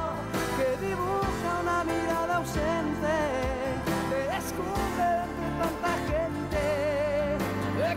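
Theme song with a solo singer over a backing band: a wavering sung melody over a steady beat.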